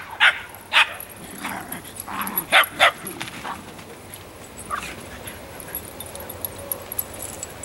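Dog barking in short, sharp barks: a quick run of about six in the first three seconds, then one more near five seconds.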